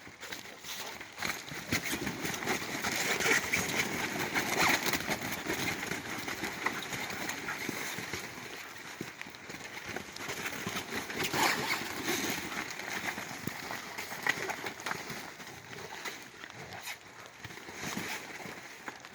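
Golden retrievers and goldendoodles wrestling on a wet, leaf-covered trampoline: scuffling paws, rustling and splashy patter on the wet mat, with dog play noises. It is busiest about two to five seconds in and again around eleven seconds.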